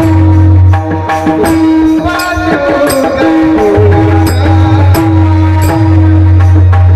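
Marathi devotional bhajan music: a steady held drone under repeated drum and small-cymbal strokes, with a melody gliding up and down in pitch around the middle.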